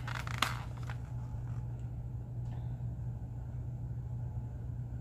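Steady low hum, with two light clicks in the first second.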